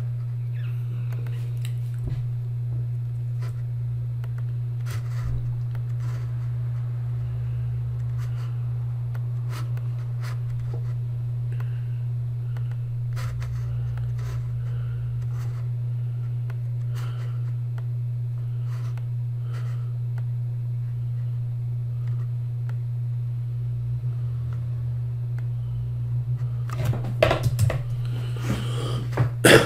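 A steady low hum throughout, with faint scattered clicks from a computer mouse while drawing.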